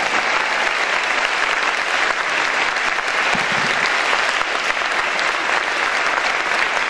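Audience applauding: dense, steady clapping with no music.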